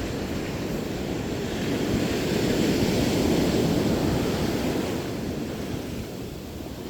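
Ocean surf washing on the shoreline, a wave surging up about two seconds in and easing away, with some wind on the microphone.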